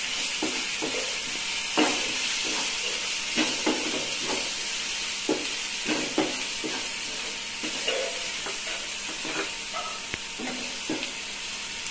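Onions, tomatoes and spices sizzling in a nonstick kadai as a slotted wooden spatula stirs them, scraping and tapping against the pan in short, irregular strokes over a steady frying hiss. The spice powders have just gone in and are being fried into the masala.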